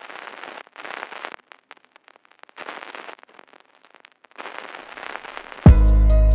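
Irregular bursts of crackling noise with scattered clicks. About five and a half seconds in, a much louder hip-hop beat with heavy bass and drum hits starts.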